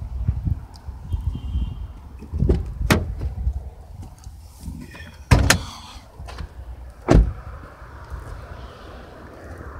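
Doors of a 2018 Toyota Camry being opened and shut: a few clunks and thuds, the loudest about five seconds in and another about two seconds later.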